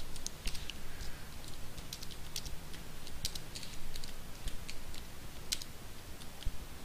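Typing on a computer keyboard: an irregular run of key clicks as a short sentence is typed.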